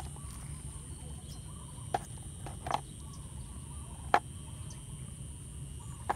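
Steady high insect drone over a low rumble of outdoor air, broken by three short sharp clicks spaced about a second apart.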